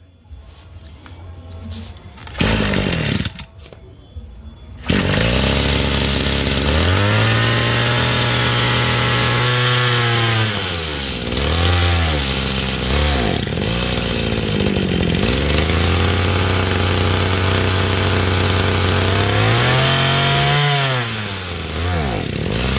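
Echo GT24 brush cutter's small two-stroke engine starting after a couple of short bursts about two to five seconds in, then running and revved up and down several times, the pitch climbing with each blip of the throttle, held for a few seconds, and dropping back to idle.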